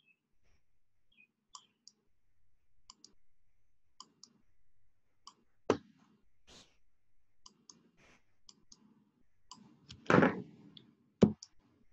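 Computer mouse clicking, many short sharp clicks, often in close pairs, about one every second, with faint low rubbing between them as the mouse is moved to hand-write a word on screen. A louder brief noise comes about ten seconds in, followed by a sharp click.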